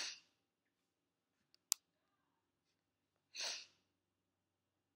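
Near silence in a small room, broken by two short breaths, one right at the start and another about three and a half seconds in, with a single faint click between them.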